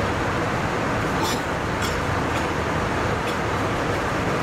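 Steady cabin noise inside an Airbus A320 airliner: the even rush of its engines and air, with a few faint light ticks in the first half.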